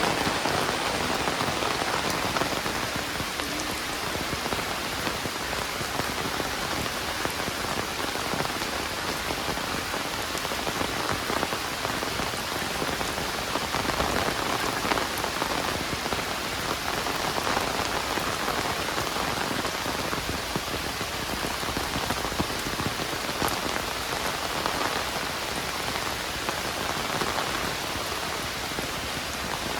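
Heavy rain falling steadily: a dense, even hiss with scattered drops ticking.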